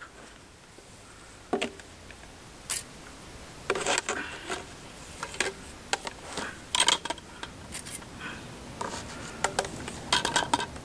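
Metal jubilee clips (worm-drive hose clamps) being handled and threaded around a plastic drain pipe and a steel shelf bracket: scattered clicks, taps and rustles, clustered at irregular intervals.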